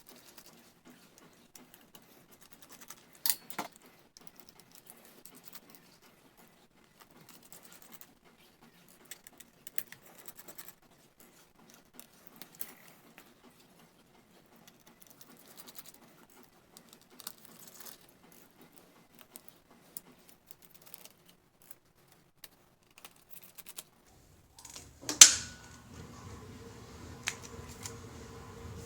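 Small clicks, taps and scrapes of hands working on a laptop and its small parts, with a sharp click about 3 s in. Near the end comes one loud knock, followed by a steady low hum.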